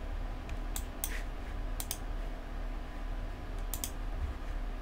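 A handful of sharp clicks at a computer keyboard and mouse, some in quick pairs, over a steady low hum.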